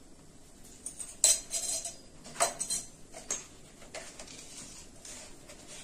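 Metal spoon clinking and scraping against metal vessels as spoonfuls of sambar powder go into an aluminium pot: a sharp clink about a second in, another a little after two seconds, then several lighter clinks and scrapes.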